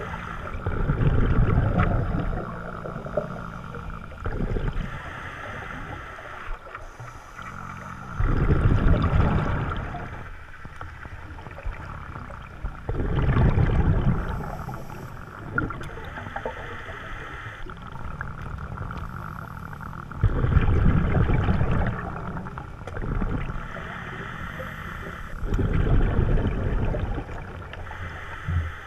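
A scuba diver breathing through a regulator underwater: a loud burble of exhaled bubbles every four to six seconds, each lasting a second or two, with quieter stretches between.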